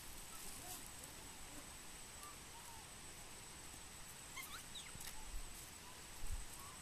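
Faint short high chirping animal calls, a few scattered ones and then a quick cluster about halfway through, over a thin steady high whine. A soft low thump near the end.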